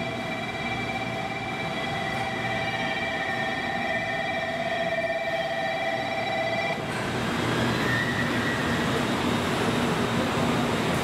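Stationary electric train at a station platform: a steady whine of several fixed tones over a hiss. The tones cut off suddenly about seven seconds in, leaving a broader rushing noise.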